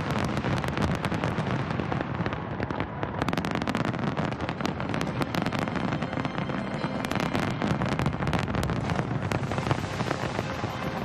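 Fireworks going off in rapid succession: a dense run of sharp bangs and crackles over a continuous rumble.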